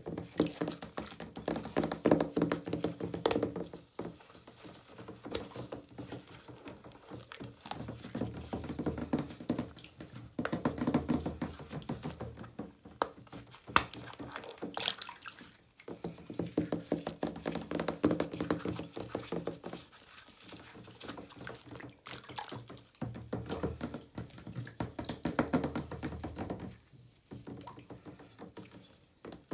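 A soft, half-dissolved Lush bath bomb squeezed and squished by hand in bath water. Wet squelching and sloshing comes in bouts of a few seconds, over a dense crackle.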